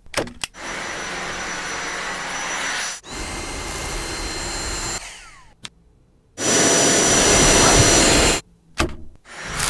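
Cordless stick vacuum cleaner running, a steady rushing of air with a thin high whine from the motor. It comes in several cut-together stretches: it fades out about halfway through, starts again louder a second or so later, and stops again near the end, with a few short clicks in the breaks.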